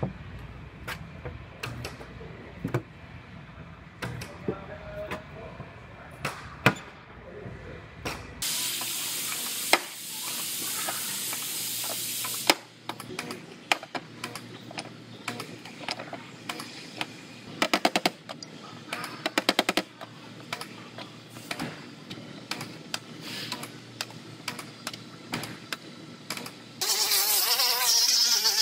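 Dent pulling on a car's quarter panel: a string of sharp clicks and knocks from a stud welder and a slide-hammer dent puller, including two quick runs of clicks. A few seconds of steady hissing whir come in between. Near the end a handheld air grinder with a stripping disc starts up and runs loudly and steadily on the bare metal.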